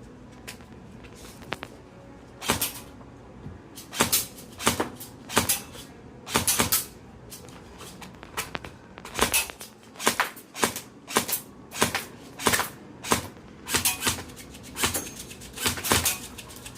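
Airsoft gun being fired over and over: a run of sharp snapping pops, about one every half second to a second, some coming in quick pairs as the BBs strike the targets.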